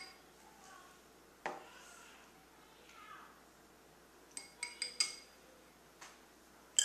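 Plastic spoon tapping and clinking against a glass parfait dish and a bowl while yogurt is scooped and added: one tap about a second and a half in, a quick run of four taps with a short glassy ring near five seconds, and a louder clink at the very end.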